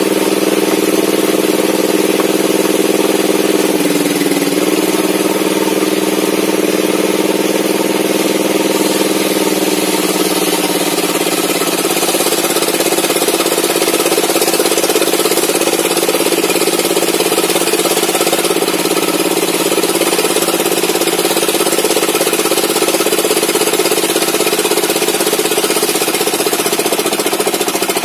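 Home-built table saw ripping an old mahogany beam: the saw's drive and blade run steadily under load. The pitch dips about four seconds in and sinks a little from about ten seconds on as the cut bears down on the blade.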